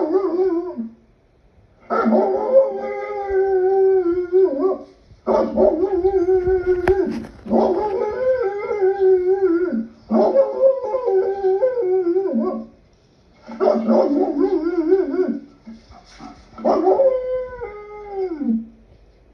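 Wolves howling in chorus: several wavering howls overlap at once, in bouts of two to four seconds separated by short pauses.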